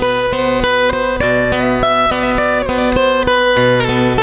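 Background music led by a strummed guitar, with a steady rhythm of about four strokes a second over held notes.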